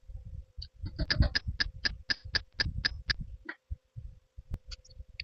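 Close-miked eating of chicken and rice: wet chewing and mouth smacks, with a quick run of sharp smacks about four a second between one and three seconds in, then scattered clicks. A faint steady hum runs underneath.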